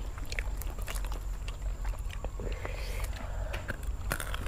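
Light scattered clicks and crackles of people handling and chewing crisp roasted food and herbs, over a low steady rumble.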